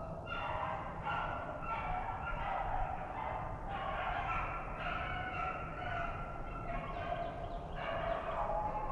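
A pack of rabbit hounds baying while running a rabbit, many voices overlapping in a steady chorus of repeated calls.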